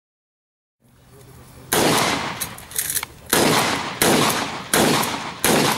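Competition shotgun firing a string of shots: about five loud blasts, the last four roughly two-thirds of a second apart, with a few fainter cracks between the first two. The shots follow a brief dead silence.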